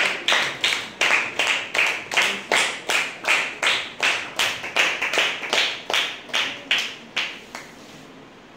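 Hands clapping in a steady, even rhythm, about two and a half claps a second, growing fainter and stopping about seven and a half seconds in.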